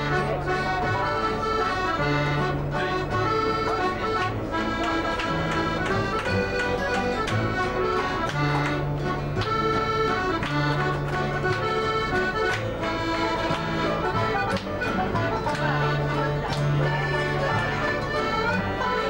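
Live folk band playing an instrumental tune on acoustic instruments: strummed guitar and banjo over a walking bass line, with a sustained melody line on top.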